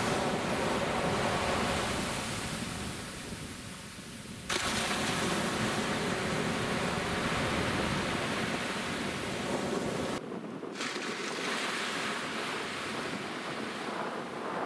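Surf washing onto a sandy beach, with wind buffeting the microphone. The sound changes abruptly about four and a half seconds in and again near ten seconds as the shot changes.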